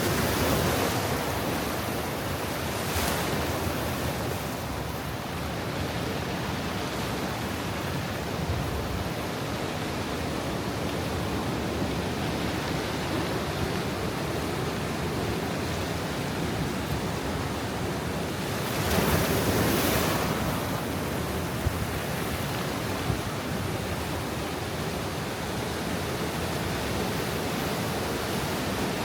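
Ocean surf washing against a rocky shore at high tide: a steady rushing wash with swells as waves come in, the biggest about two-thirds of the way through.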